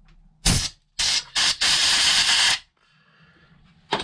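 Compressed air blasted through a thin nozzle in three hissing bursts, two short and then one longer one, blowing swarf out of a freshly tapped thread in a steel bolt.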